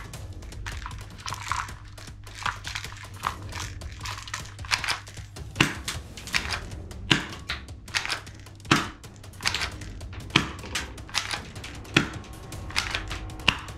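Plastic clicks and clacks of a toy pistol being handled, its parts knocking and snapping about once or twice a second, over faint background music.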